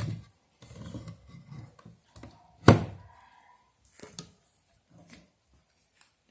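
Knocks and handling sounds of wooden pieces, with one sharp, loud knock about two and a half seconds in and a few lighter taps after it.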